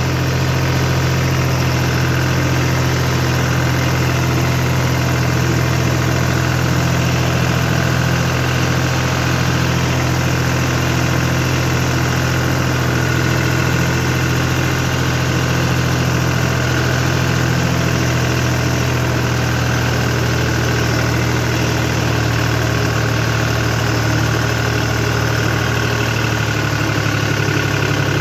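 John Deere tractor's diesel engine running at a steady speed, working through a flooded paddy field during puddling.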